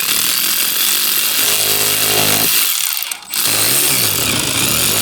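Handheld power tool running in two long bursts with a short break about three seconds in, its motor pitch wavering up and down in the second burst.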